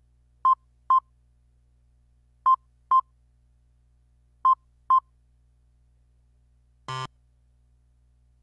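Earthquake early warning software on a computer sounding its alert: pairs of short, high electronic beeps, three pairs two seconds apart, then a single short buzzy tone about seven seconds in. A faint low hum, which is microphone noise, runs underneath.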